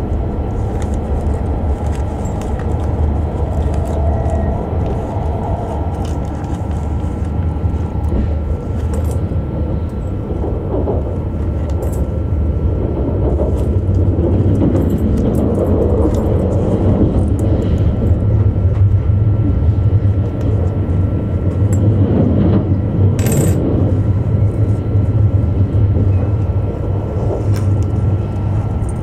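Cabin noise inside an E5 series Shinkansen as it pulls out and gets under way: a steady low rumble with running noise that grows louder about halfway through. Scattered light clicks, and one sharper clink about two-thirds of the way in.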